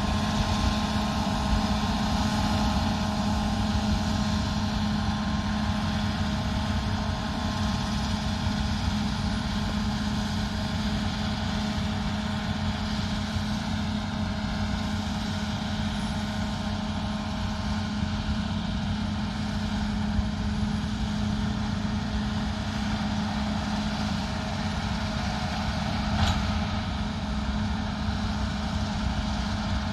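Combine harvester running steadily at work, a constant engine and machinery drone with a few held tones in it; one short click near the end.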